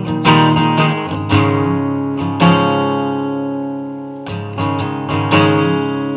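Guitar strumming chords, with one chord left to ring and fade for about two seconds in the middle before the strumming starts again.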